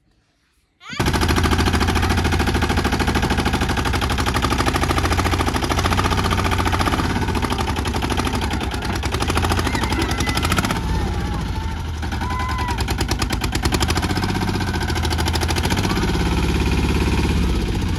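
Mini tractor's small engine running loud with a rapid, even firing beat, cutting in suddenly about a second in.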